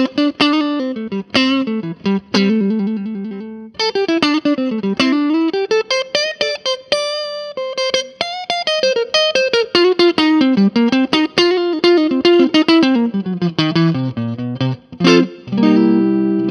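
Electric guitar played through an Orange Crush Pro 60 amp on its clean channel, EQ set flat, with plate reverb added. Quick picked single-note runs rise and fall in pitch, then give way to louder chords near the end.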